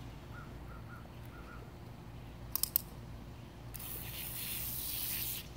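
Multi-pattern garden hose spray nozzle: its dial clicks a few times as it is turned to a new setting, then a burst of water spray hisses for about a second and a half near the end.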